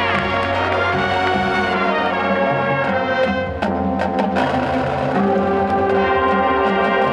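Marching band playing live: a brass section over drums and pit percussion. It plays full chords, with a few sharp percussion hits a little past halfway, then a held brass chord.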